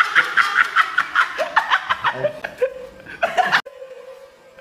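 Men laughing hard in quick, rapidly repeated ha-ha bursts that loosen after about two seconds into scattered laughs and voice sounds. The sound cuts off abruptly about three and a half seconds in, leaving a faint steady hum.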